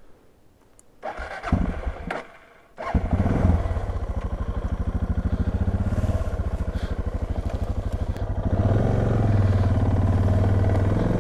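Suzuki DR650's single-cylinder engine cranked on the starter about a second in. It catches just under three seconds in and settles into a steady, pulsing idle, with the revs rising slightly about eight seconds in.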